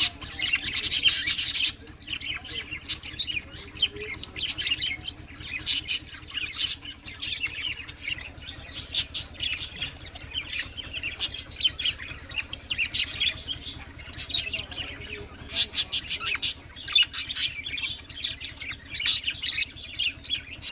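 A flock of small pet parrots, sold as love birds, chirping and twittering continuously, with many short sharp chirps overlapping.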